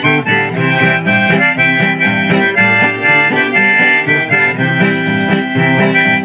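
Instrumental background music with a steady beat, with no singing in this stretch.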